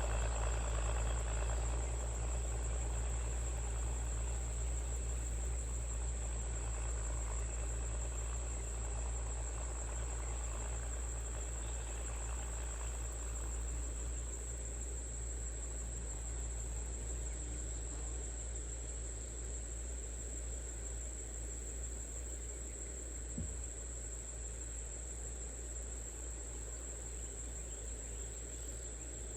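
Crickets chirring in a steady high-pitched drone, over a low steady hum that slowly fades.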